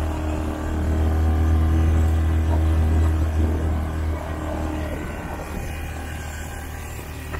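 Quad bike engine running with a steady low hum, easing off about four seconds in.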